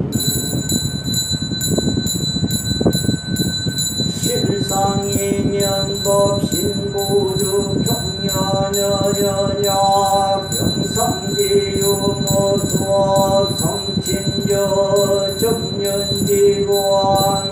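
A small Buddhist hand bell shaken in a steady quick rhythm, about three strokes a second, its high ringing sustained, under Korean Buddhist chanting. About four seconds in, a monk's voice comes in with long held sung notes.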